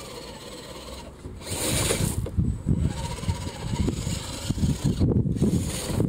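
A 1/10-scale FTX Outback Tundra RC crawler driving over loose gravel, its tyres crunching and scraping the stones, getting louder from about a second and a half in, with a low rumble of wind on the microphone.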